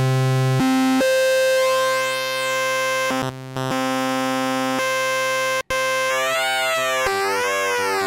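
Melbourne Instruments Nina synthesizer holding a sustained note with oscillator sync engaged. The pitch steps a couple of times early on. Then, from about six seconds in, the synced oscillator's tuning is swept and the tone's colour sweeps up and down twice.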